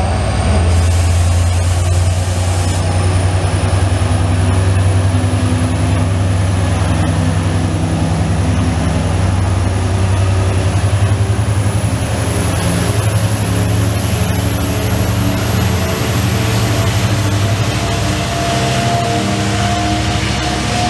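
Bombardier TRAXX AC electric locomotive accelerating away with its train: a deep steady hum under whines from its traction equipment that climb slowly in pitch as it gathers speed.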